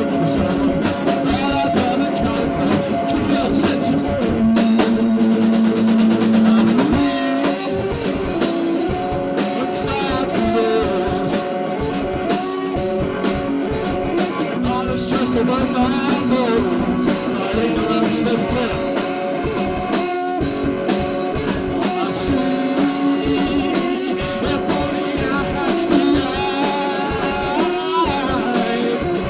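Rock band playing an instrumental passage: electric guitars over a drum kit, with sustained guitar notes and a busy beat, played out of tune.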